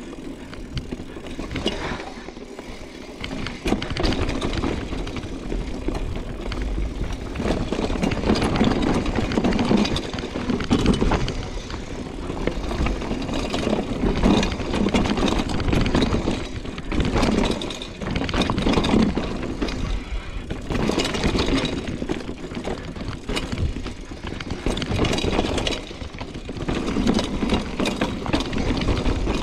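Mountain bike descending a rough downhill trail: tyre and rattling noise from the bike over bumps, rising and falling in waves every second or two, with a deep rushing rumble of wind on the microphone.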